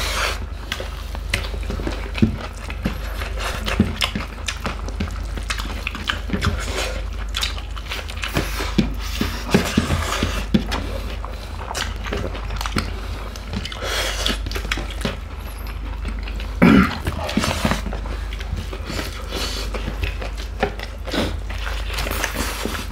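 Close-miked eating by hand: fingers mixing rice and curry on plates, with chewing and mouth smacks heard as a steady run of short wet clicks and squishes. One brief louder sound stands out about two-thirds of the way through.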